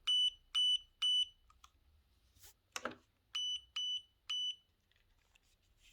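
Two groups of three short, high electronic beeps, with a sharp click between them a little before halfway: the beep prompts of a Godox TT685 speedlight in slave mode, fired from the trigger's test button.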